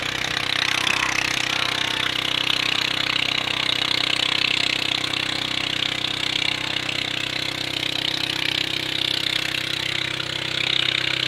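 A small engine running steadily, with a loud hiss over a low, even hum.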